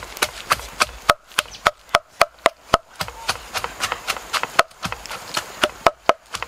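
Wood fire crackling, with sharp irregular snaps and pops several times a second.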